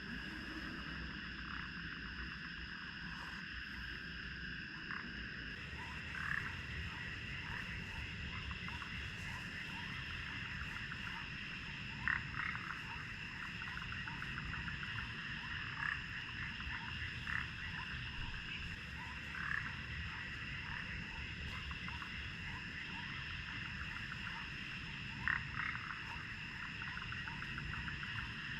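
Frogs calling in a steady chorus of high, continuous trilling, with louder single croaks standing out every few seconds, over a steady low rumble.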